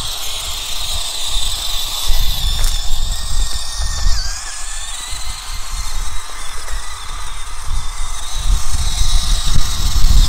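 Electric drive motor and gears of a large 4x4 RC car whining at a high pitch during a speed run, the whine dipping and then climbing again about four seconds in, over a fluctuating low rumble.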